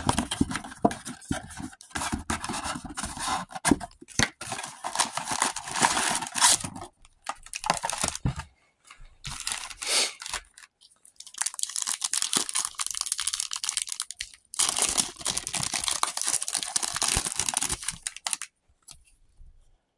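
Trading-card packaging being torn open: the blaster box and its foil card packs crinkling and ripping in irregular spells, with short pauses, stopping shortly before the end.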